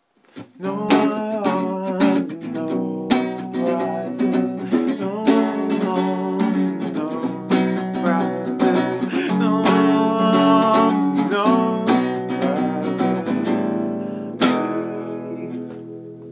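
Acoustic guitar played as a run of picked and strummed chords. A last chord struck near the end rings out and fades.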